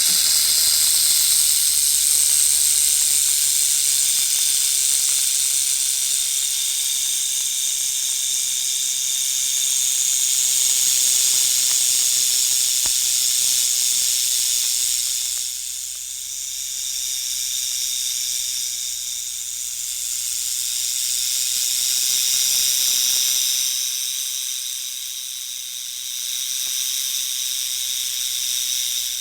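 Rattlesnake shaking its tail rattle: a continuous high buzz that swells and eases, dipping about halfway through and again near the end.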